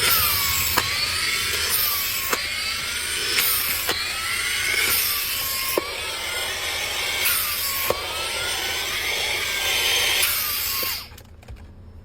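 Suction-and-blowing vacuum cleaner running, with a sharp click about every one and a half seconds and a whistle that dips and rises between clicks. It shuts off about eleven seconds in.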